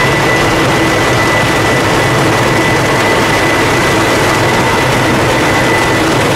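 Large truck-mounted rotary snow blower working, its engine and impeller running steadily as it throws snow. The sound is a dense, even noise with a constant high whine.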